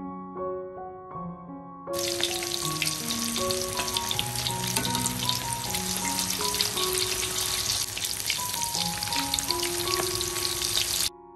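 Chicken pieces frying in hot oil: a dense sizzling hiss with many small crackles and pops, starting about two seconds in and cutting off suddenly near the end.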